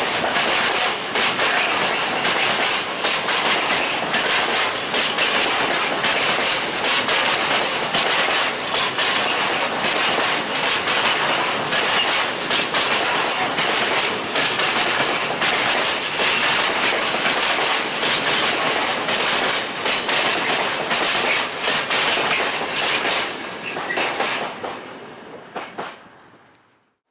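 Long rake of loaded open coal wagons of a freight train rolling past at speed. The wheels make a continuous rhythmic clickety-clack over the rail joints, with a rolling rumble beneath. It fades away near the end as the last wagon passes.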